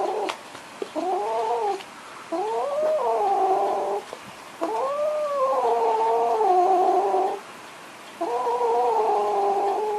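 Cat yowling: a string of long, drawn-out wails that bend up and down in pitch, with short pauses between them. The longest wail lasts about three seconds.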